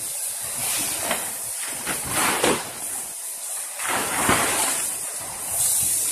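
Large plastic (PE) tarpaulin sheets crinkling and rustling as they are hauled and lifted along the welding table, in several swelling surges over a steady high hiss.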